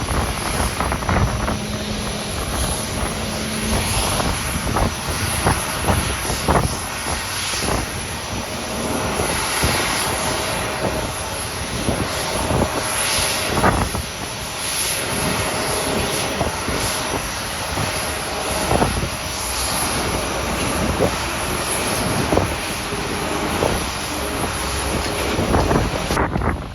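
Airliner engines running steadily, heard through strong gusty wind buffeting the microphone.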